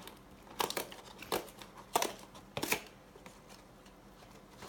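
Packaging of a Pokémon trading card deck crinkling and tearing as it is pulled open by hand, in about four short bursts in the first three seconds.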